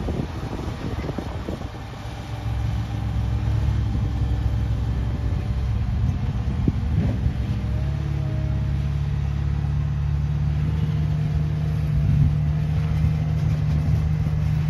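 Diesel engine of a Caterpillar compact track loader running under load as the machine manoeuvres. The engine note steps up to higher revs about eight seconds in and holds there.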